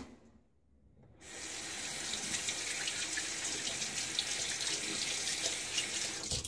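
Cold water running from a bathroom sink tap, with splashing as a face is rinsed under it; the flow starts about a second in and stops shortly before the end.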